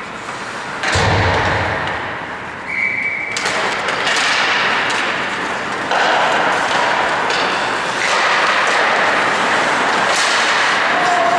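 Ice hockey in play: skate blades scraping on the ice and sticks and puck clacking, with a heavy thump about a second in.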